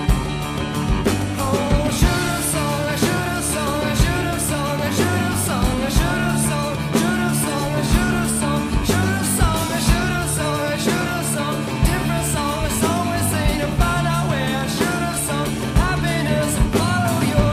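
Recorded rock song by a band: drum kit keeping a steady beat with cymbals, bass and guitar, and a singing voice carrying the melody.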